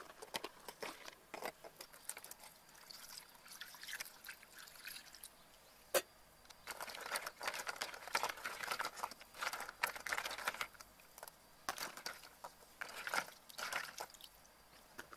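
Eggshells clicking and knocking against one another and against a plastic bowl as eggs are handled, with a run of small crackling sounds. There is one sharp knock about six seconds in, and the crackling grows busier after it.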